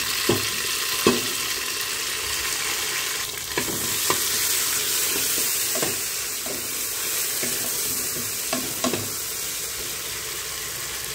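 Tomatoes and golden fried shallots sizzling in hot ghee in a pan, with a spatula stirring and knocking against the pan now and then.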